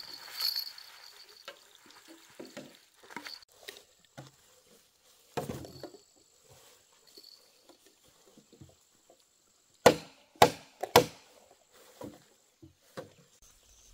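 Three sharp chopping blows of a blade striking wood, about half a second apart, among quieter scattered knocks and handling sounds.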